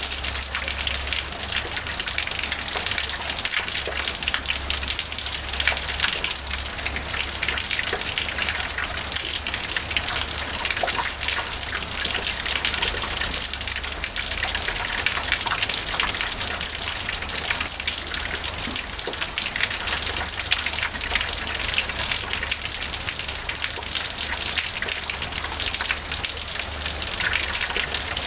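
Small waterfall: water pouring from a stone dragon-head spout and seeping down a rock wall, splashing steadily into the pool below with a dense patter of drops. A steady low rumble runs underneath.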